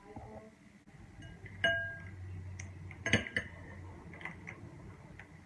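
Several clinks and taps of dishes and utensils on a table while ingredients are added to a glass mixing bowl. The sharpest come about a second and a half in, with a brief ring like glass, and about three seconds in.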